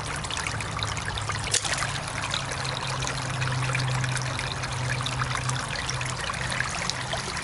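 Water trickling and splashing, with a low steady hum underneath.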